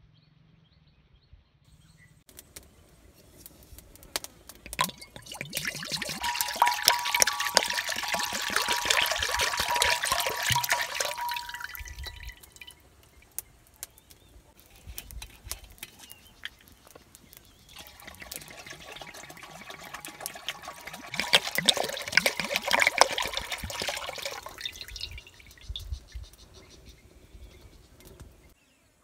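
Buffalo milk poured into a wide black pan: two long pours of splashing liquid, each lasting several seconds, with a pause between them.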